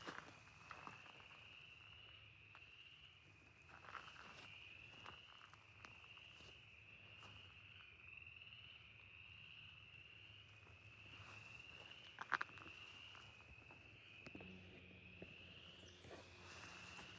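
Faint insect chorus: a steady high-pitched buzzing trill that swells and rises slightly about once a second. Scattered footsteps on the trail crunch through it, one sharper step or snap a little past twelve seconds.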